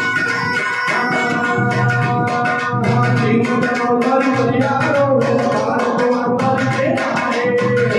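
Loud Gurjar folk music played over a DJ sound system: a steady rhythm of hand-drum beats under sustained melodic tones.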